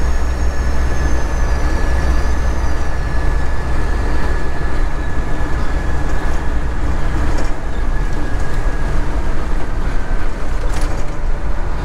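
Cab interior noise of a Freightliner Classic semi truck cruising at highway speed: a steady, loud, deep engine and road rumble.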